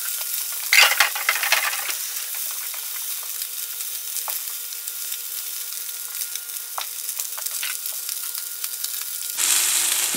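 Salmon fillet searing in oil in a hot skillet: steady sizzling with scattered crackles and pops, growing louder just before the end.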